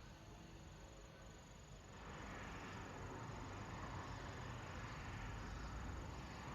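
Faint steady chorus of insects, growing louder about two seconds in, over a low rumble.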